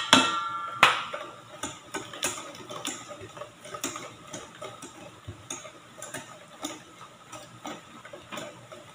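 A wire balloon whisk beating eggs in a stainless steel bowl: a quick, steady run of light metallic clicks as the wires strike the bowl's sides. Near the start there are a couple of louder, ringing clinks.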